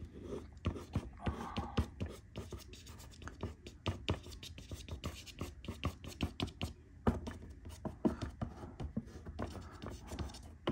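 Hard pastel stick (Nupastel) scratching and tapping on Clairefontaine Pastelmat paper in many quick, irregular short strokes, several a second.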